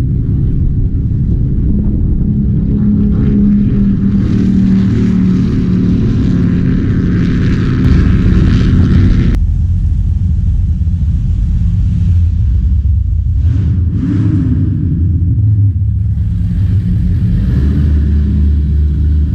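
Offshore powerboat V8 engines running. For the first half, boats run fast across open water, a steady engine note mixed with spray and water noise. About halfway it changes abruptly to a deep, low rumble as a powerboat's V8s burble at low speed.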